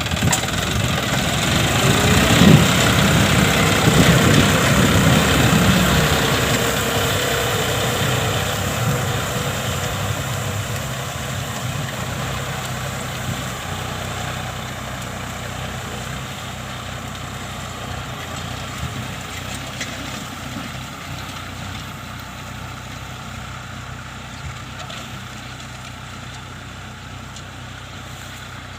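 John Deere 5050D tractor's 50-horsepower diesel engine running steadily, loudest a few seconds in, then fading gradually.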